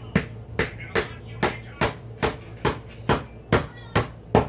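Hammer driving small nails: a steady run of sharp blows, about two and a half a second.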